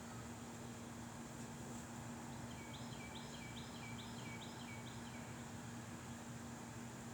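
A small bird singing a quick run of repeated notes that step between a higher and a lower pitch, lasting about two and a half seconds from a couple of seconds in. Underneath runs a steady outdoor hiss with a low hum.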